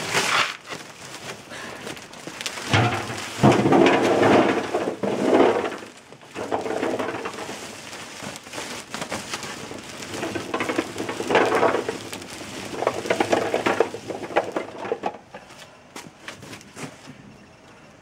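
Wild apples pouring out of a sack into a large aluminium basin, a rumbling clatter of fruit knocking on metal and on each other that comes in several surges. Near the end a few single apples drop in with separate knocks.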